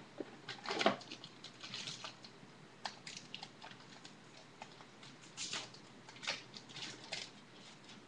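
Trading cards and foil pack wrappers being handled: irregular soft rustles, slides and small clicks, with a short run of louder rustling about a second in.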